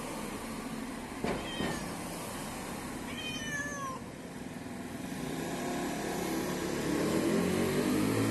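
A cat meowing once, a falling cry about three seconds in, after two light clicks. A low hum grows steadily louder through the second half.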